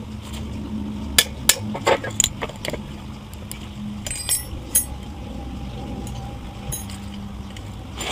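Metal engine parts and tools knocking and clinking during the teardown of a GX390-clone engine: a few sharp knocks starting about a second in, then a couple of short ringing metal clinks around four seconds in, over a steady low hum.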